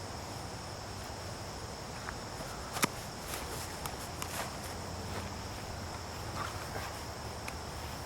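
Steady high-pitched chirring of crickets, with one sharp crack a little under three seconds in and a few fainter clicks over the next couple of seconds.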